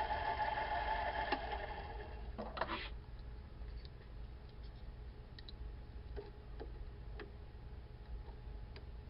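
Metal lathe running with a steady pitched hum, which fades away over the first three seconds. A short clatter comes about two and a half seconds in, followed by a scatter of faint light clicks.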